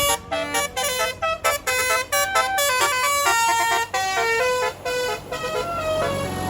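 A bus's 'telolet' horn set, a bank of multi-note electric air horns of the Basuri type, playing a quick tune of stepped notes that ends about six seconds in.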